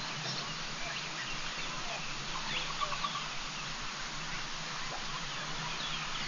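Steady outdoor hiss with a few faint, short bird calls scattered through it.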